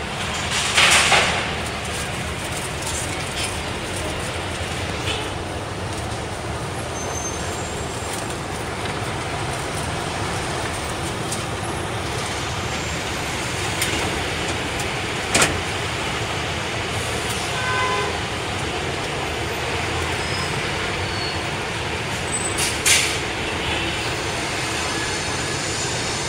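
Steady city street traffic noise heard from the upper deck of a moving sightseeing bus, with two short, loud hisses, one about a second in and one near the end.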